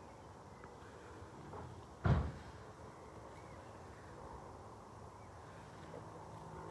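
A single dull thump about two seconds in, over faint outdoor background noise.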